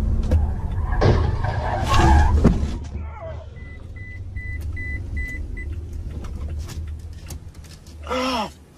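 Car interior: low engine and road rumble, loudest about two seconds in, then dropping away. About six short, evenly spaced high electronic beeps follow, roughly three a second. A brief voice sounds near the end.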